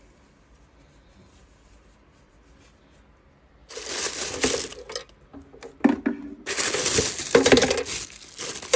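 Tissue packing paper crinkling and rustling as it is pulled out of the pot of a compact electric deep fryer, starting about four seconds in after a fairly quiet start. A single sharp knock comes about six seconds in.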